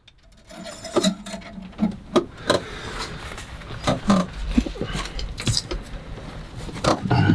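Scattered clicks, knocks and light rattles of hands working around a boat's engine, with a low rumble coming in about halfway through.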